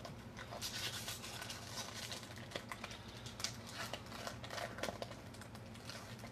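Irregular crinkling and crackling with sharp clicks: Magic: The Gathering booster pack wrapper and cards being handled.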